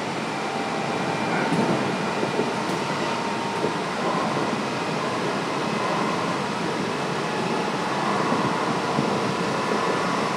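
Inside a Kintetsu 5800 series electric train running steadily: wheel-and-rail running noise with the air conditioning's steady hiss prominent, and faint steady tones above it.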